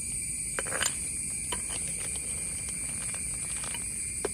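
Snails boiling hard in a clay pot over a fire, a steady bubbling hiss, with a few light clicks as a metal ladle touches the pot.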